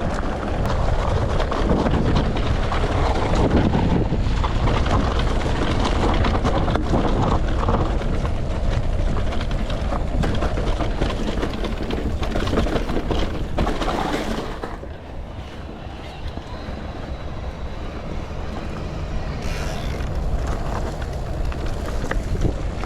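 Wind rushing over the microphone and tyre noise from a mountain bike being ridden on a dirt trail, easing off about fifteen seconds in.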